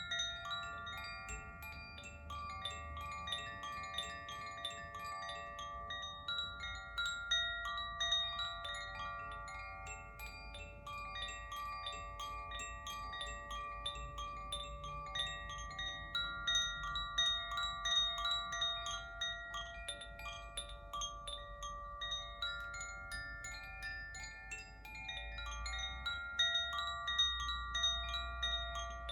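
Koshi chimes being swayed: many quick, light strikes with overlapping ringing notes that hang on and blend.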